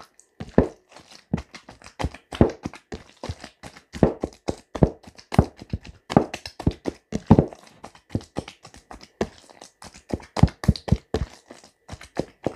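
Quick, irregular knocking and tapping from kitchen work, a few knocks a second and uneven in strength.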